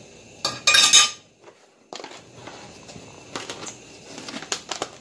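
Plastic measuring cup scooping brown sugar from a plastic canister and knocking against it and a stainless-steel mixing bowl: a loud clattering scrape about half a second in, then a string of lighter clicks and taps.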